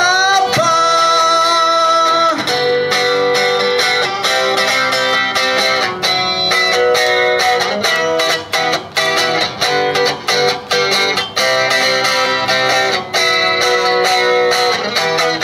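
Live amplified electric guitar music with no singing, an instrumental break in a song. It opens with a long held note for about two seconds, then goes into steady rhythmic playing.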